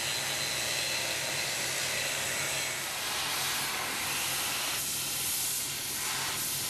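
Electric welding arc burning steadily as a weld bead is laid, a dense even hiss with a faint steady hum beneath it.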